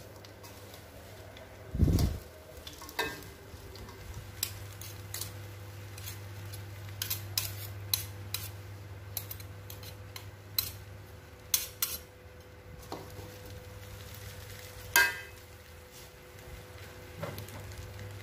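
A metal spatula and spoon scraping and clinking against an aluminium wok as a dry, sticky mix of fried anchovies and peanuts in chili paste is stirred, in irregular clicks and scrapes. There is a heavier knock about two seconds in and another about fifteen seconds in, over a steady low hum.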